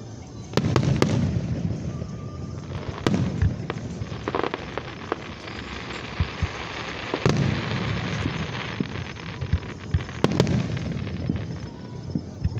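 Aerial fireworks going off: a series of sharp bangs, several close together, each trailing a low rumble, over continuous crackling.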